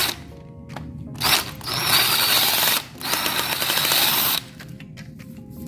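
Cordless drill-driver backing out the screws that hold the black plastic cover on a shower valve body. It runs in three bursts, a short one and then two longer ones, its whine rising and dipping in pitch.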